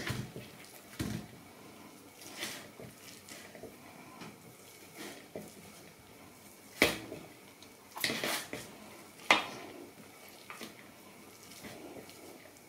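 Fork mashing a block of feta cheese in a bowl, its tines clinking and scraping against the bowl at irregular moments, loudest about seven, eight and nine seconds in.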